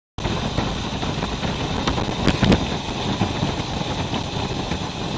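A vehicle engine running while on the move, heard as a steady, dense noise that starts suddenly, with two brief knocks about two and a half seconds in.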